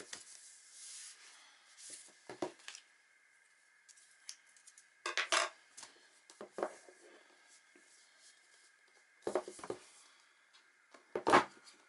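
Stiff cardboard product boxes being handled on a desk: a soft rub of cardboard at the start, then scattered taps and knocks as the boxes are picked up, turned and set down, the loudest near the end.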